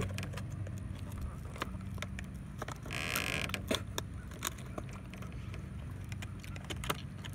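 Scattered clicks and rustles of plastic lure packaging being handled, with a brief scraping rustle about three seconds in, over a steady low hum.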